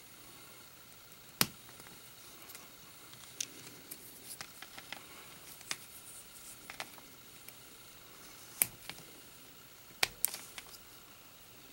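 Small plastic LEGO minifigure parts clicking and snapping together as they are fitted and handled. There are a few sharp clicks, the loudest about a second and a half in and two in quick succession near the end, with light ticks and handling rustle between them.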